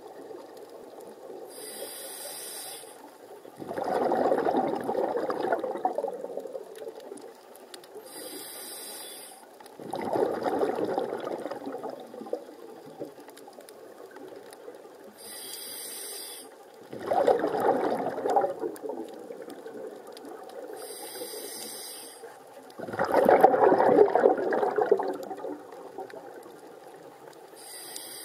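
A scuba diver breathing through an open-circuit regulator, heard underwater. A short, high hiss of the regulator on each inhale is followed by a longer rush of bubbles from the exhaust on each exhale, repeating about every six and a half seconds: five inhales and four exhales.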